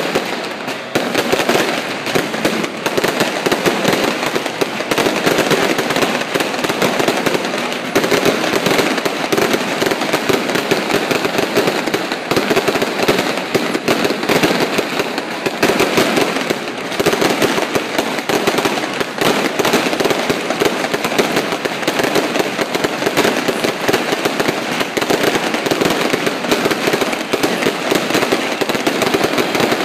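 Fireworks and firecrackers going off in a dense, continuous crackle of rapid bangs with no pause.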